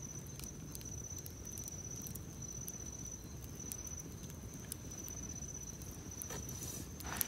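Night insects trilling one steady high note, over the faint crackle of a wood campfire: scattered small pops, with a slightly louder one near the end.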